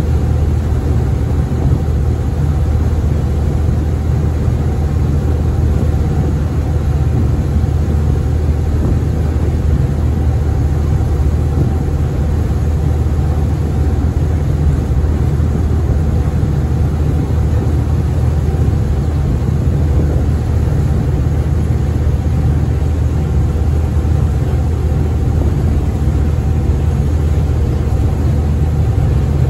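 The ferry Tsui Wah 12's engines running steadily under way, a low even drone with a steady hiss above it.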